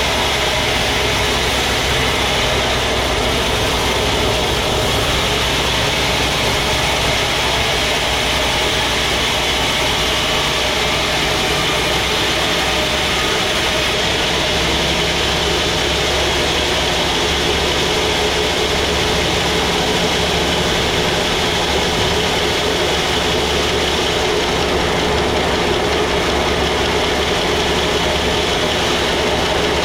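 Sawmill machinery running steadily: a constant engine drone with a dense higher noise over it, holding the same level throughout.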